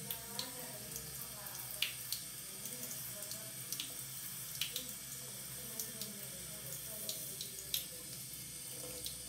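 Tap water running steadily into a sink, with a few short scratchy strokes of a cartridge razor on a lathered scalp.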